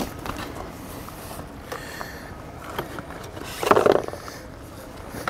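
A boat motor running steadily at the ramp, with a brief louder sound about four seconds in.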